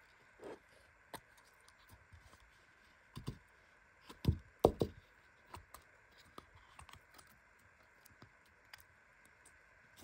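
Glitter slime squeezed out of a plastic jar by hand: scattered small sticky clicks and crackles, with a few louder squelches about three and four to five seconds in.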